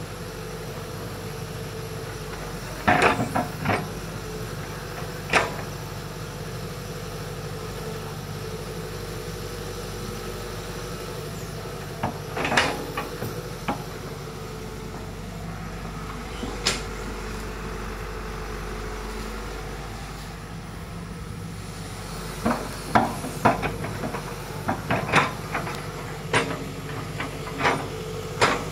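Hitachi hydraulic excavator's diesel engine running steadily as it digs, with sharp clanks and knocks from the bucket and its linkage as it works the soil. The clanks come in clusters a few seconds in, about halfway through, and repeatedly over the last several seconds.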